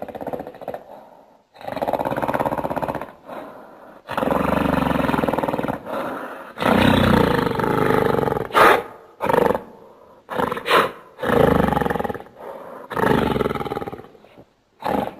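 A run of large-ape roars and growls, made as creature sound effects: about ten harsh calls separated by short pauses, the longer ones in the first half and shorter, sharper ones toward the end.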